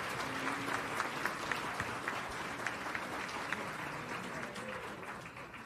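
Audience applauding, a dense patter of many hands that thins and dies away near the end.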